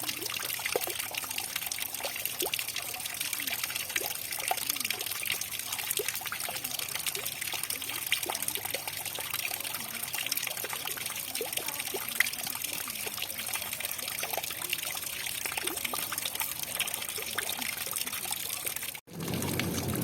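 Water trickling steadily, with many small splashes of drops. Near the end it cuts out for an instant and comes back fuller and lower, like water pouring.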